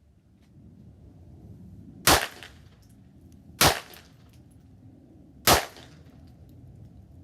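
Three 9mm pistol shots, fired one at a time about a second and a half to two seconds apart, each a sharp crack with a short echo, over a low steady background rumble.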